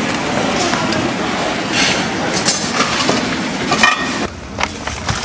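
Battered strips deep-frying in a large wok of hot oil, sizzling steadily. A wire mesh strainer knocks against the metal several times as it scoops the fritters out. The sizzle drops away just after four seconds in.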